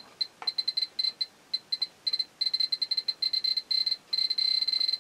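Ecotest Terra-P dosimeter's piezo beeper sounding one short high beep per detected particle. The beeps come in rapid, irregular clusters and crowd into a near-continuous stream from about halfway in. This is a very high count from the Type 75's exposed internal check source, which the owner suspects is cobalt-60 rather than strontium-90.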